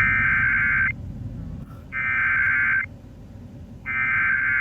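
Emergency Alert System SAME header from a NOAA Weather Radio broadcast: three bursts of digital data screech, each about a second long and a second apart. They mark the start of an alert message, here a Severe Thunderstorm Warning.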